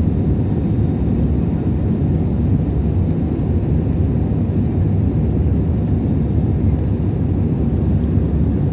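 Steady low rumble of an airliner's engines and rushing air, heard from inside the passenger cabin.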